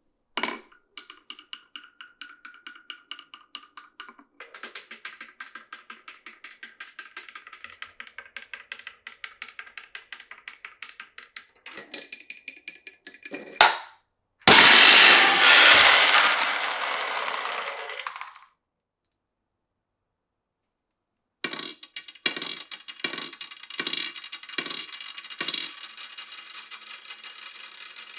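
Marbles running through a marble run: fast, even ticking as they roll along the track, a sharp clack, then a loud rushing noise that fades over about four seconds. After a pause come six evenly spaced knocks and a steady rattle.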